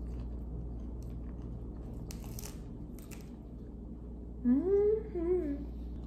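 Crisp crunching of bites into a romaine-lettuce-wrapped taco, twice about two and three seconds in, then a closed-mouth "mmm" of approval that rises and falls in two parts near the end.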